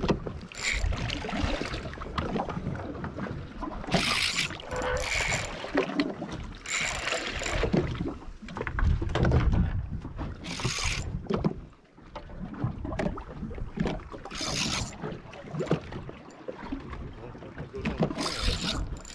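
Sea water splashing against a small fishing boat's hull in irregular bursts every few seconds, over a constant low rumble.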